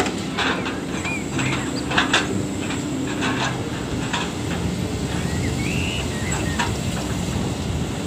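Crawler excavator's diesel engine running steadily as it swings a log grapple loaded with logs, with scattered knocks and clatter of timber and a brief high squeak about six seconds in.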